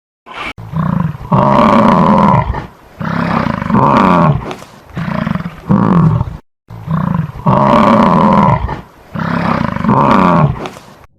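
A large animal's loud, deep calls in a series, each lasting a second or two. After a brief gap partway through, the same string of calls plays again.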